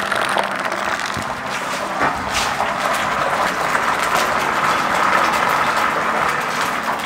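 Coated chicken pieces frying in hot oil: a steady sizzle full of fine crackles.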